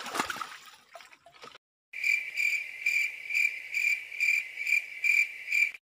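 Cricket-chirp sound effect edited in: a high, even chirp repeating about twice a second for roughly four seconds, starting and stopping abruptly. It is the usual 'crickets' gag for an awkward moment. Just before it, about the first second and a half, there is a little splashing in shallow water.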